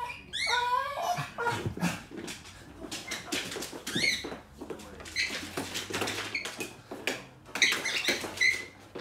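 Deaf rescue dog vocalizing in play: a warbling whine that rises and falls in the first second, then several short, high yips and squeaks, with clicks and scuffles mixed in.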